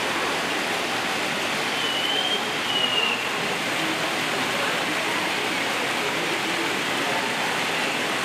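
Steady rushing of running water, like a waterfall or pumped water feature, with a short high whistle-like squeak about two seconds in.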